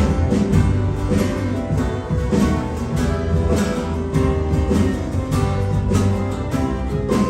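Band playing an instrumental passage of a country-folk song, led by plucked guitar over strong low notes and a steady beat, coming in at full volume just as it starts.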